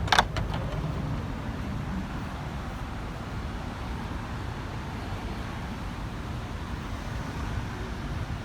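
Steady low rumble of road traffic, with a few sharp clicks at the very start.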